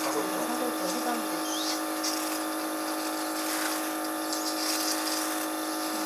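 Steady electric machine hum made of many fixed tones, running evenly throughout.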